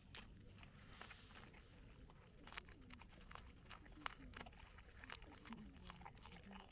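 Capybara biting and chewing a crisp cabbage leaf: a quiet, irregular series of wet crunches and snaps, a few sharper ones about two and a half, four and five seconds in.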